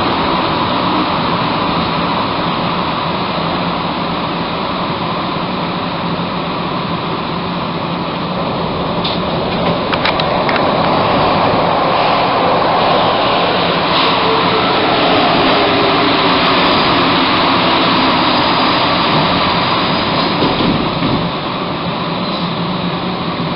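Bombardier-Vickers MR-63 metro train on rubber tyres, heard from inside the car: steady running noise with a motor hum. In the second half it slows with a falling motor tone as it brakes into a station.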